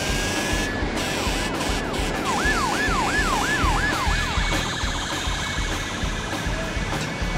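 Fire engine's electronic siren: a rising wail at the start, then a fast up-and-down yelp of about three sweeps a second, switching about halfway through to a much faster warble.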